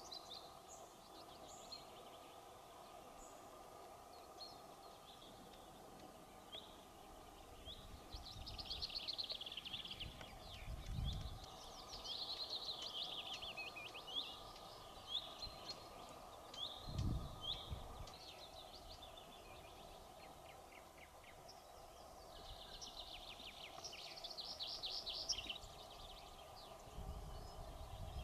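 Small songbirds singing repeated short trilled phrases over a steady faint background noise, with a few brief low thumps.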